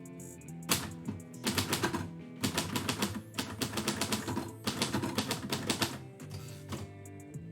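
Typewriter keys striking in quick runs of typing, starting about a second in and stopping about a second before the end, over background music.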